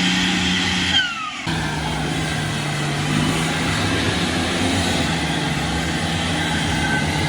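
Off-road 4x4's engine running steadily under load, with a falling whine about a second in and a brief break, then running on at a slightly lower pitch.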